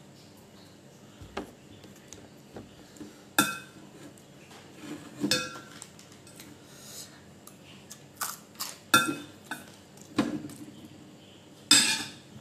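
A metal spoon knocking and scraping in a stainless-steel mixing bowl: a run of separate sharp clinks, several ringing briefly, the loudest near the end.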